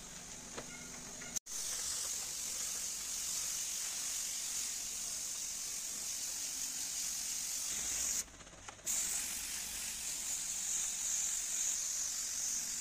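Gravity-feed paint spray gun spraying the colour coat onto a car bonnet: a steady high air hiss that begins about a second and a half in and stops for about half a second a little past the middle before going on.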